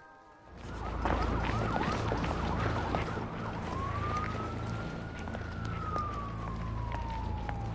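City street noise with a steady low traffic rumble, cutting in about half a second in, with a flurry of quick high chirps, then a police siren wailing: one slow rise and long fall, starting to rise again near the end.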